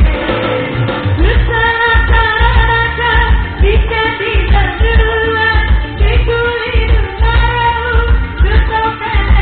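Loud song with a singer over a heavy, steady bass beat.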